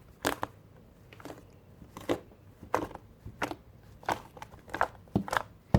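Homemade slime being squeezed and worked by hand, giving short squelching pops and crackles, unevenly about every half second.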